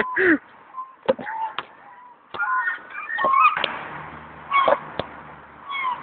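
Fighting gulls calling in short squawks at intervals, about six calls in all, mixed with a few sharp clicks.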